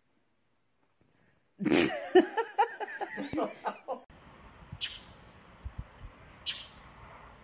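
A person laughing in a burst of quick, bouncing pulses for about two and a half seconds. Then steady hiss with two short high chirps.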